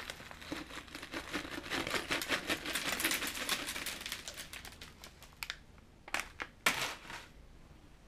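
Cardboard-and-paper dog-treat box crinkling and rustling as it is shaken and squeezed by hand, then quieter with a couple of short crinkles near the end.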